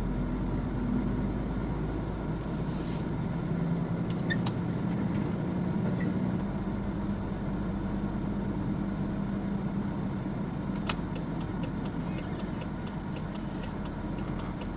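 Truck engine running steadily at low speed, heard from inside the cab. A run of evenly spaced light ticks starts near the end.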